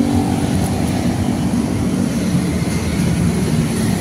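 Steady low rumble of motor traffic passing on the road, engines droning with no single event standing out.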